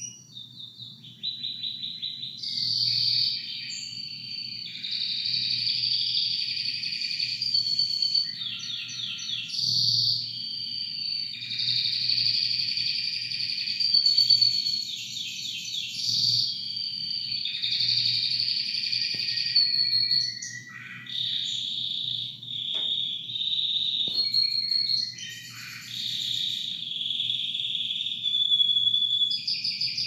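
Canary singing a long, nearly continuous song of fast rolling trills and chirps, with a few short breaks in the second half.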